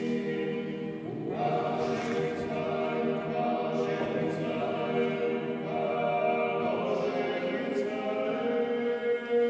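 Orthodox church choir singing a cappella liturgical chant, several voices holding long chords that move to new notes every two to three seconds.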